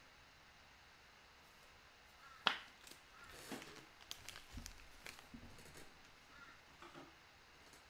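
Faint handling noise of trading cards and packs: one sharp click about two and a half seconds in, then light scattered taps and rustles.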